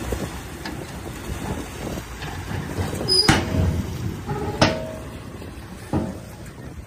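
Diesel engine of heavy earthmoving machinery running steadily, with three sharp metallic clanks in the second half.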